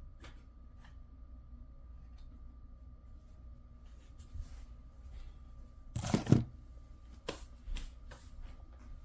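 Room tone with a faint steady hum, broken by scattered soft rustles and clicks, the loudest a short rustling burst about six seconds in followed by two lighter clicks.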